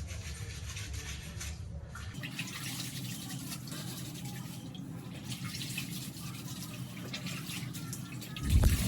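Water running and trickling into a toilet bowl, as when the toilet is flushed and refills, with a shift in the rush of water about two seconds in and a low thump near the end.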